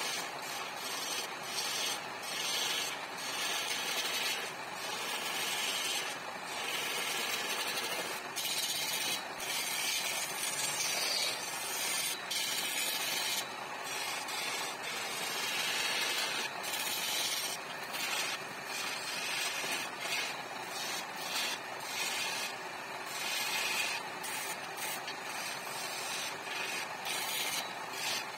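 Wood lathe turning a sofa leg while a hand-held turning chisel cuts into the spinning wood: a hissing scrape that swells and drops every second or so as the tool is pressed in and eased off, over the steady running of the lathe.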